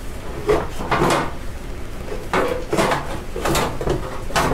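Molded plastic rear fender and floorboard panel of a John Deere GT235 garden tractor being pried up and lifted off: a string of irregular knocks and rattles as it comes loose.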